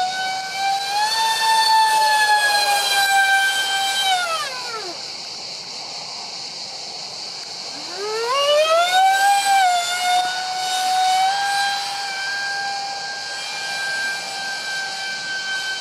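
Twin electric ducted fans of a Freewing Su-35 RC jet (five-blade rotors on 2600kv motors at 6S) screeching in flight over a steady rushing hiss. The whine slides steeply down about four seconds in, then climbs back near eight seconds and holds steady. The harsh, vibrating screech comes from loose fans on cheap shaft adapters whose mounting pads have come away.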